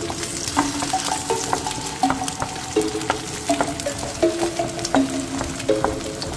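Eggs sizzling in a hot oiled pan while a wooden spatula stirs and scrambles them. The spatula makes irregular clicks and scrapes against the pan about once or twice a second.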